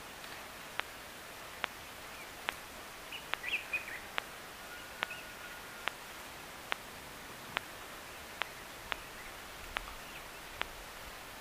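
Bush ambience with a regular series of sharp clicks a little more than once a second, and a few brief bird chirps about three and a half seconds in.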